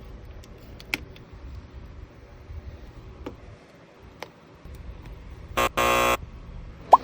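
A harsh buzz in two pulses about five and a half seconds in, a brief one and then one of about half a second, with a few light clicks before it. A short rising chirp comes right at the end.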